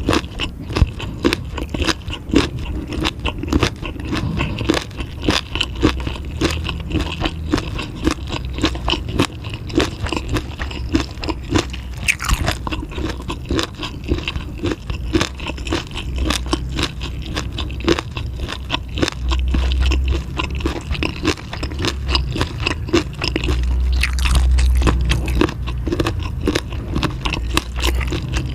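Close-miked chewing of food, a dense steady run of small crunches and clicks.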